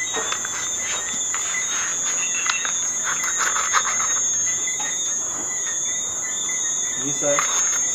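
A steady, high-pitched insect chorus, with short scrapes and clicks of a knife blade cutting along a queen snapper's backbone and against a plastic cutting board.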